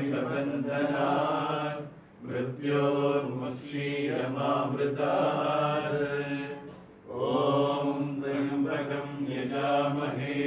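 Sanskrit verses recited as a devotional chant by a single voice in long, evenly pitched phrases. There are short breaks for breath about two and seven seconds in.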